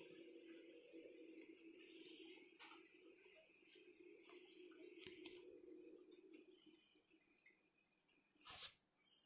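A cricket chirping steadily: a high, rapidly pulsing tone. A low hum underneath fades out about seven seconds in, and a sharp click comes near the end.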